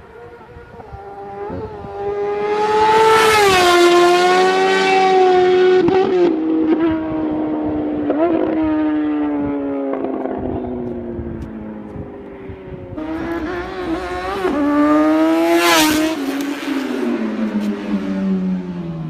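Superbikes running at high revs and passing by at speed, loudest twice: about three seconds in and again about fifteen seconds in. The engine pitch falls away after each pass, with a few quick dips in pitch that sound like gear changes.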